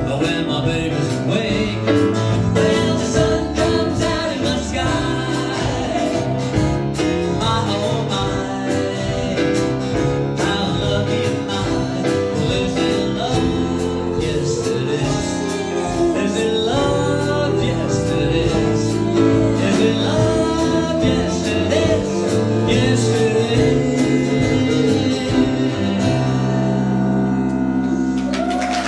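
Live band playing a song, with female lead vocals over electric bass, keyboard, drums and acoustic guitar. About three seconds before the end the drums stop and the band holds a final chord.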